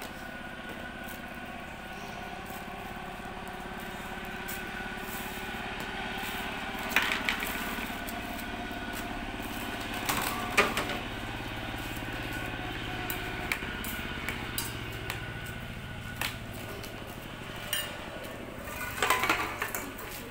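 A small engine runs steadily in the background, slowly growing louder and then easing off near the end. A few sharp clicks and knocks of a plastic jar being handled stand out over it, the loudest about two-thirds of the way in and near the end.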